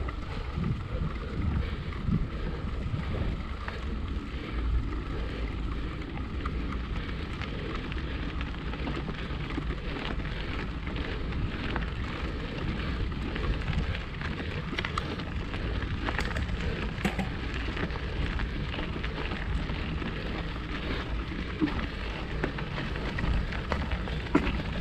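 Mountain bike tyres rolling and crackling steadily over a dry dirt-and-gravel trail, with wind rumbling on the camera's microphone.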